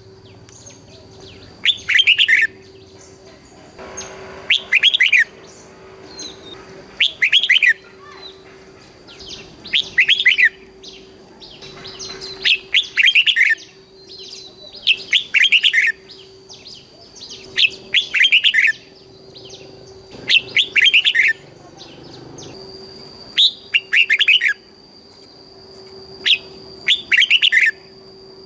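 Red-whiskered bulbul singing short, quick, warbling phrases, one about every two and a half seconds. A faint steady hum runs behind the song.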